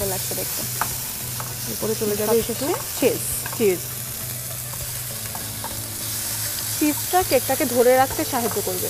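Food sizzling in a nonstick frying pan while a wooden spatula stirs and scrapes through chopped capsicum and chicken. A steady hiss runs under irregular scraping strokes.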